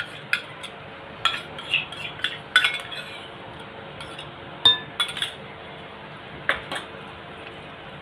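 A spoon clinking and scraping against a bowl as ginger-garlic paste is added to marinating chicken. There are a series of light clicks, then one loud clink with a short ring a little past halfway, and a few more taps afterwards.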